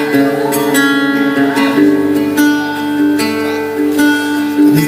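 Acoustic guitar strumming sustained chords, a strum roughly every second, as the introduction of a live rock song.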